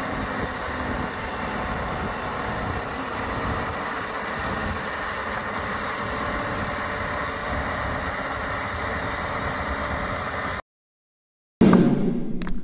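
Farm tractor and PTO-driven forestry tiller working, a steady engine drone that cuts off abruptly near the end. After about a second of silence comes a single loud, deep hit that fades away.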